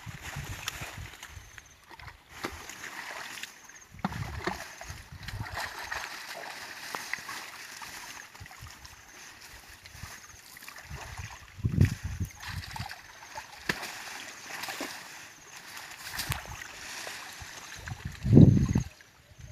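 Water splashing and sloshing, with dull low thumps about twelve seconds in and, loudest, near the end.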